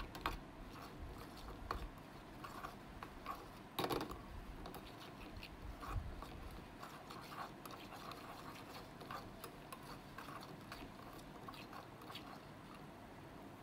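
Onion-and-spice masala frying in oil in a pan, a faint irregular crackle, with a couple of louder knocks about four and six seconds in.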